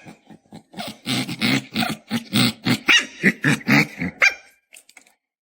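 Small puppy growling and yapping in a rapid run of short bursts, about three a second, stopping near the end.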